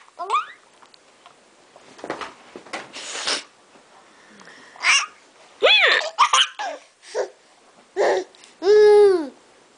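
Baby laughing in a string of short, separate bursts, ending with a longer high laugh that rises and falls in pitch.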